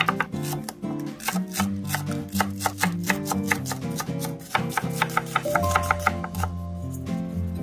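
Chef's knife chopping cucumber, chives and onion on a wooden cutting board in quick, even strokes, about four to five a second, mixed with louder background music.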